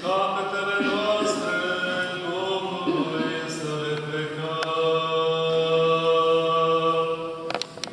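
Orthodox church chanters singing a sung response to the priest's litany petition, several voices holding long, steady notes together. A couple of sharp clicks come near the end as the singing stops.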